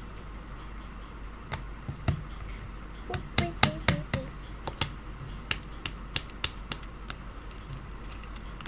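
Irregular sharp clicks and taps, a dense cluster about three to four seconds in and scattered ones after, from hands handling a plastic slime container.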